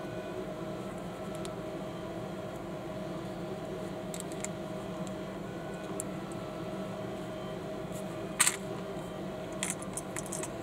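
Small plastic building bricks clicking and snapping as they are pressed together by hand: a few sparse clicks, the loudest about eight and a half seconds in, with a small cluster near the end, over a steady low hum.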